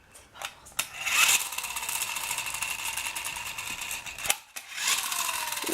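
A battery-powered bubble blower's small motor whirring steadily after a couple of clicks. It cuts out briefly near the end and then starts again.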